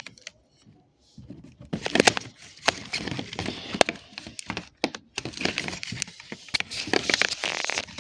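Packaging rustling and crinkling with many small clicks and knocks as a product is handled and unwrapped, starting about a second in.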